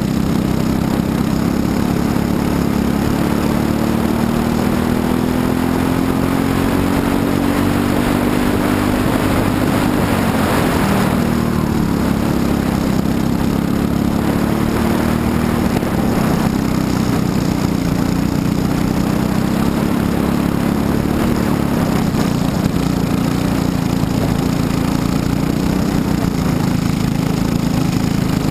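Briggs & Stratton LO206 single-cylinder four-stroke kart engine at race speed, heard from on board the kart. Its note climbs and drops with the throttle through the corners, with a marked dip and rise about ten to twelve seconds in.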